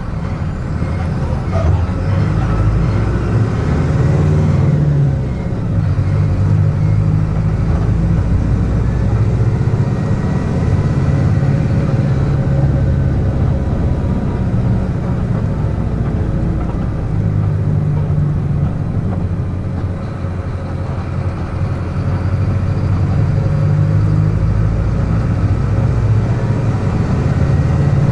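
Mercedes-Benz OF-1722M bus's front-mounted diesel engine running under way, heard from on board, its low drone swelling and dropping back several times as the bus pulls and eases off.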